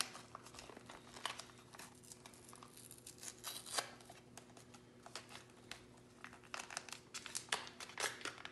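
A paper cheese-powder packet crinkling and tearing as it is worked open by hand: a string of small, faint crackles.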